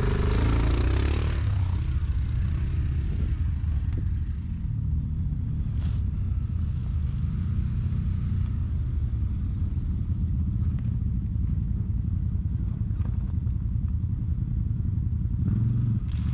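Can-Am Outlander XMR 1000 ATV's V-twin engine running steadily at low revs, with a brief rush of noise in the first second or two.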